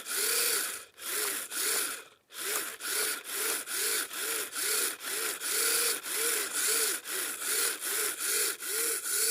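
Kyosho Blizzard RC snowcat's electric motor and tracks whining up and falling back about twice a second, over a steady rasping, as the throttle is worked forward and reverse.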